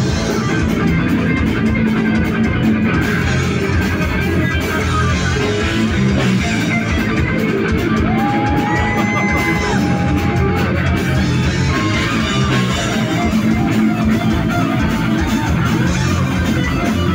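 Heavy metal band playing live: distorted electric guitars over bass and drums. There is a long held note about eight seconds in.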